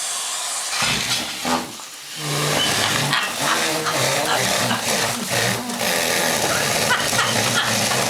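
Vacuum cleaner running with a steady hiss that briefly drops about two seconds in. After the drop, a basset hound makes low, wavering vocal sounds over the vacuum noise.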